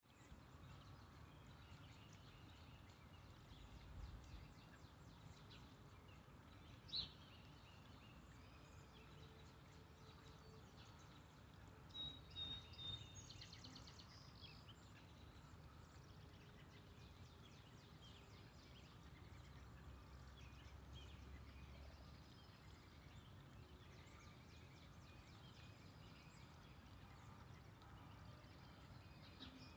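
Faint outdoor ambience: a low, steady rumble with a few short, distant bird chirps, one about seven seconds in and a small cluster around twelve to thirteen seconds.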